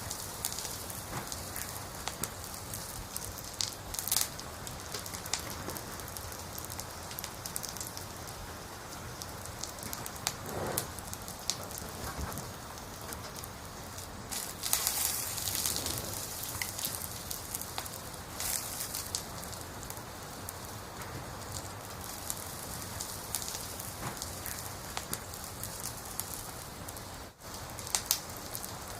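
Campfire logs burning: a steady hiss with frequent sharp crackles and pops, and a few louder flurries of crackling.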